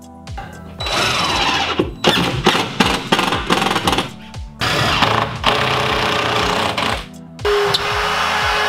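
A cordless drill/driver runs in short loud passages, driving screws through drywall into ceiling joists. About three-quarters of the way in, a drywall rotary cut-out tool starts up with a steady high whine and cuts through the drywall sheet for a can light. Background music with a steady beat plays underneath.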